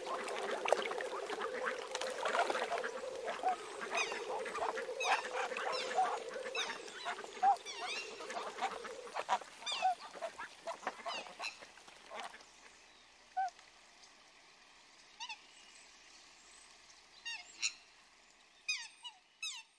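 Waterfowl calling: many short, pitched calls in quick succession, thinning out after about twelve seconds to a few scattered calls. A steady hum runs under them for roughly the first nine seconds.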